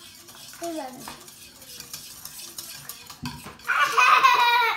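Wire whisk stirring a glue, water and baking-soda mixture in a plastic bowl, with quick clicks and scrapes against the bowl. Near the end a loud, high-pitched squeal lasts about a second.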